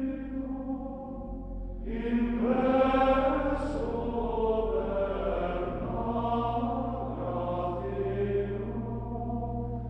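Background music of slow choral chanting: voices hold long notes that change every second or two, over a low steady drone.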